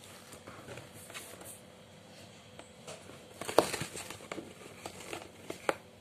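Crumpled paper crinkling and rustling as a cat paws at it inside a cardboard box, with a few sharp taps and scrapes. The loudest comes a little past halfway, and a smaller one just before the end.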